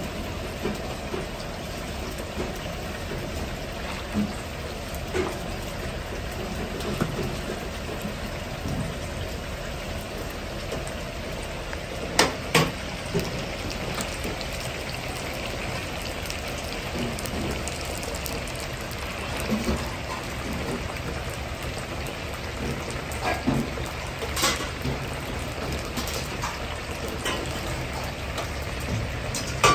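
Starch-battered chicken thigh pieces deep-frying in a wok of oil: a steady bubbling crackle, like rain. A few sharp clinks stand out about twelve seconds in and again near the end, over a steady low rumble.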